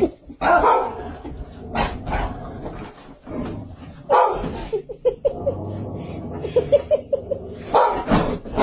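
Dogs barking: several loud single barks a second or two apart, with a quick run of short high-pitched notes, about four a second, in the middle.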